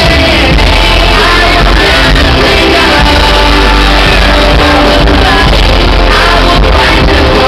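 Live pop song played loud over a sound system, with a voice singing the melody and fans shouting along.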